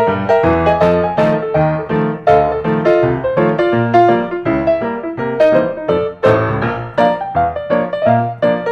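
Background piano music: a light melody over regularly repeated bass notes.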